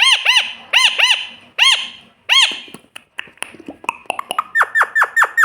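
Pet parrot calling: a string of short, shrill squawks that rise and fall in pitch, then a quicker run of short falling chirps and clicks, about four a second.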